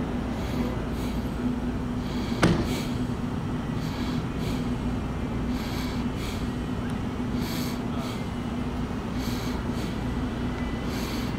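A steady low mechanical hum with a constant tone, overlaid by a faint hiss that comes and goes, and one sharp click about two and a half seconds in.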